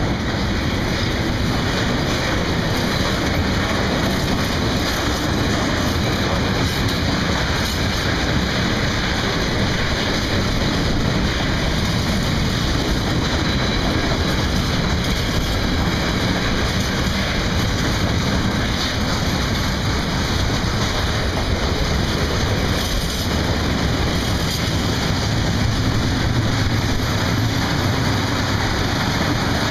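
Freight wagons of a mixed freight train rolling past close by: a loud, steady noise of steel wheels running on the rails, with no break.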